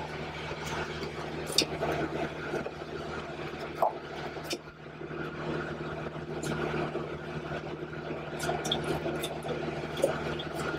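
Steady low mechanical hum inside a produce trailer, with a few light knocks and rustles as the excess of a cargo strap is knotted off against stretch-wrapped cabbage boxes.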